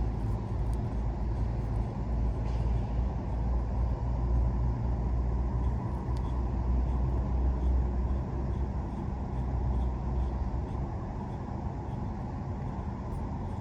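Steady low rumble of an idling motor vehicle engine, easing slightly about eleven seconds in.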